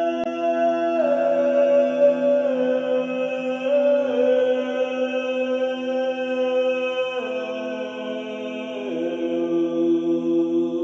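Chanting voice singing a mantra in long held notes, moving to a new pitch every one to three seconds, over the steady hum of a crystal singing bowl being rubbed.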